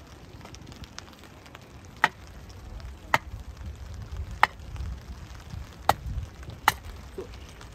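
Small hatchet splitting kindling on a wooden chopping block: five sharp wooden knocks, about a second apart, as the blade is driven down through a stick of softwood.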